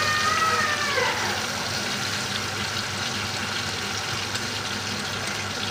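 T-bone steak sizzling in hot oil in a frying pan, a steady frying hiss as it is turned with metal tongs. A short, high, drawn-out voice sound comes over it in the first second or so.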